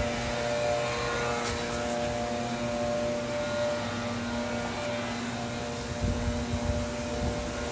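Strong hurricane wind blowing steadily, with gusts buffeting the phone's microphone about six seconds in, over a steady low hum.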